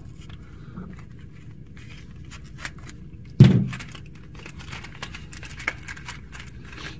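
Handling of a cardboard box of .223 brass cartridges as it is opened, with small clicks and light metallic clinks of the rounds. One loud thump comes about halfway through.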